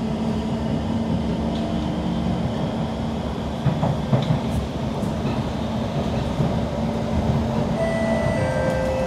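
Kawasaki C151 metro train running, heard from inside the carriage: a steady rumble of the wheels on the track under a steady motor hum. A few clicks come about four seconds in, and a new set of higher whining tones starts near the end.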